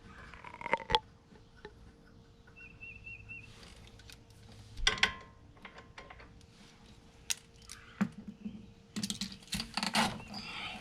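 Intermittent metallic clinks, taps and rattles of hand tools and parts being handled, with sharp knocks about a second in and around five seconds in, and a quick run of clatters near the end.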